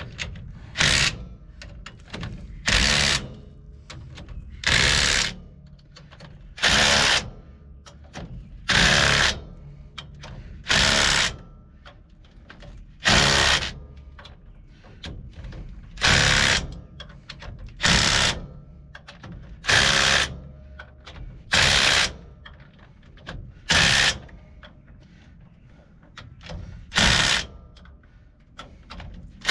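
Handheld power tool, drill-like, run in about thirteen short bursts of roughly half a second each, spaced about two seconds apart.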